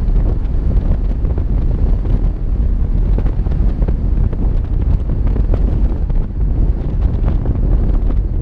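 Wind buffeting the microphone of a camera mounted on the hood of a moving vehicle: a loud, steady low rumble with small irregular gusts, the vehicle's driving noise underneath.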